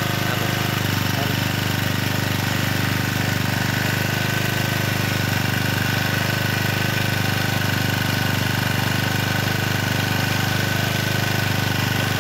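Excell portable generator's Mitsubishi four-stroke engine running at a steady speed, with a steady high whine over it; the alternator is putting out about 200 volts AC.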